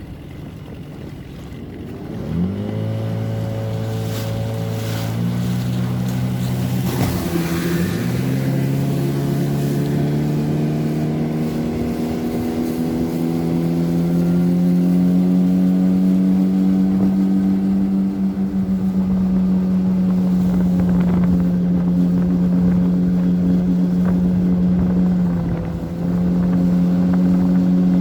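9.9 hp outboard motors on inflatable boats, throttled up hard from a low idle about two seconds in. Their pitch climbs in steps as the boats accelerate, then holds steady and high at full throttle, with a brief dip near the end.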